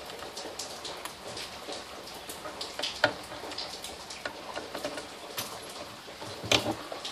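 Small metal screws clicking and clinking as they are picked from a loose pile and set into a car radio's metal mounting bracket, with a screwdriver working a screw in; two louder clacks, one about three seconds in and one near the end.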